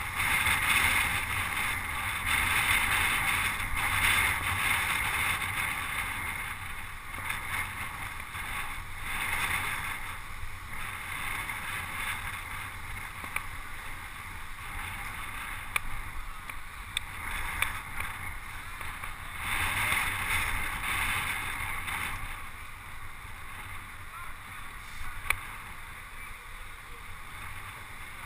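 Wind rushing over a bike-mounted action camera's microphone, with road-bike tyre and drivetrain noise from riding in a racing pack, swelling and easing. A few sharp clicks stand out in the second half.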